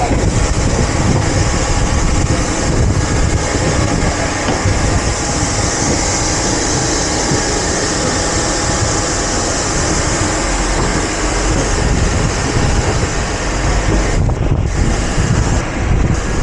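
Loud, steady jet aircraft noise on an airport apron, a low roar with hiss that grows brighter for several seconds in the middle.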